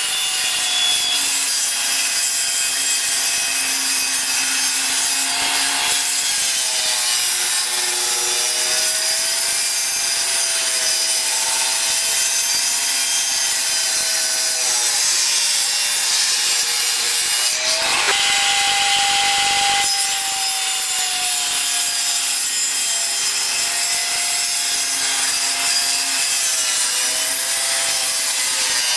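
Jobsite table saw ripping wood: a steady motor whine with the noise of the blade cutting. The pitch sags as the blade bites and rises to a higher, steadier whine for a couple of seconds about two-thirds of the way through, when the blade runs free between cuts.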